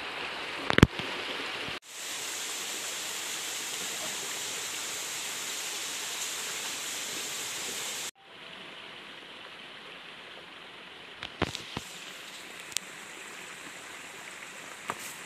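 Steady rushing noise like running water from a stream, cutting off abruptly twice and coming back at a different level. A few sharp knocks stand out over it, the loudest about a second in and several more near the end.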